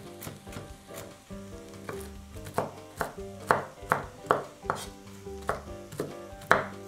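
Chef's knife chopping walnuts on a wooden cutting board: a run of sharp knocks, about two to three a second, starting a couple of seconds in.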